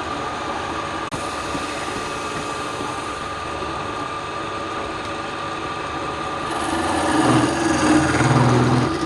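Wood lathe motor running with a steady whine. From about two-thirds of the way in it gets louder and rougher as a tool or abrasive is pressed against the spinning wood, then eases off near the end.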